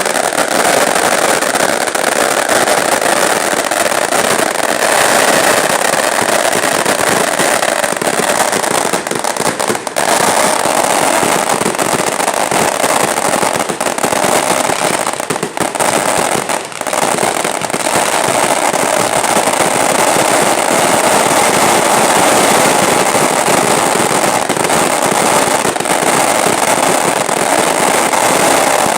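A large festival bonfire burning, with a loud, dense crackling and popping that dips briefly a few times midway.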